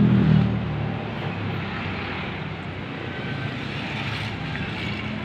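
Low engine hum, loudest in the first second and then fading into a steady rumble.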